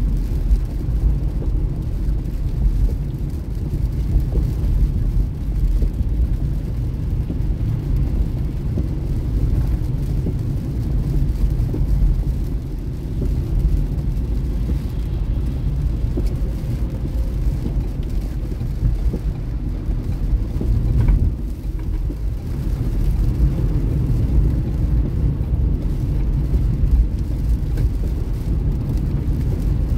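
A car driving on a rain-soaked road, heard from inside the cabin: a steady low rumble of road and engine noise.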